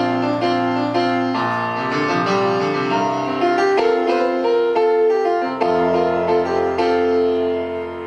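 Piano played in slow, sustained chords over a low bass note that changes every few seconds.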